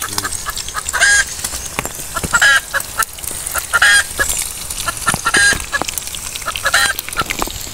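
A bird calling over and over: about five strong calls at a steady pace, roughly one every second and a half, with fainter calls and short clicks in between.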